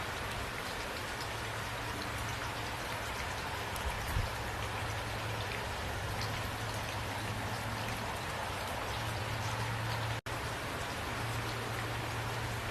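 Steady rain falling, with individual drops ticking sharply on a surface over an even hiss and a low steady hum underneath. The sound cuts out for an instant about ten seconds in.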